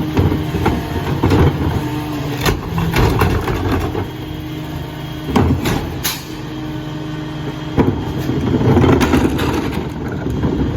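Dennis Eagle rear-loader garbage truck running at a steady engine note, with several sharp knocks and bangs about two and a half, five and a half, six and eight seconds in.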